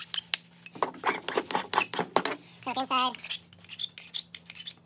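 Hand file scraping the cut end of a metal square-tube bar in a quick, irregular series of short strokes, deburring its sharp edges.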